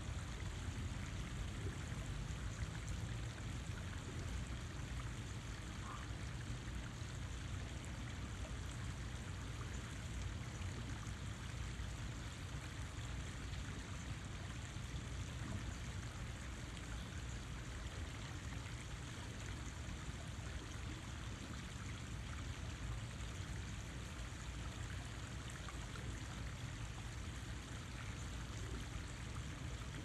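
Steady, unbroken rush of running water.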